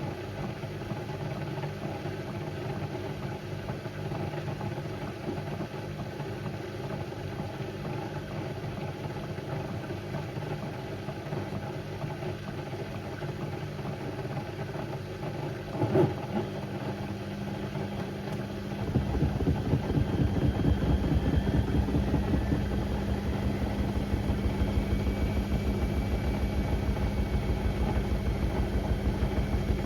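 Beko WM74135 washing machine running with a steady motor hum. A single knock comes near the middle, and a few seconds later the machine grows louder with a rhythmically pulsing rumble and a steady hum.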